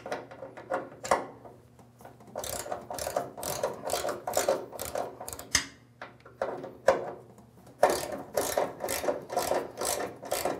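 Socket ratchet with an extension and 1/2 inch socket clicking in quick runs as it is swung back and forth, loosening the bolts that hold a snow blower's auger housing to its frame.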